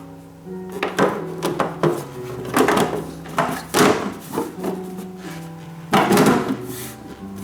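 Knocks, clatter and scraping as a treadmill cover is handled and fitted into place, loudest around two and a half, four and six seconds in, over soft background music.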